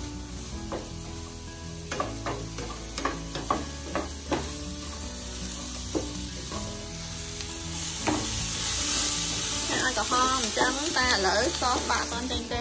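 Diced onions frying in oil in a nonstick pan, sizzling, while a wooden spatula scrapes and knocks against the pan as they are stirred. The sizzle grows louder about eight seconds in.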